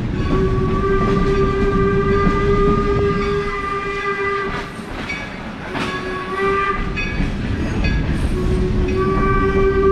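Locomotive No. 17 sounding its crossing signal as the train rolls through a road crossing: one long blast, a short one, then another long one, over the steady rumble of the moving train.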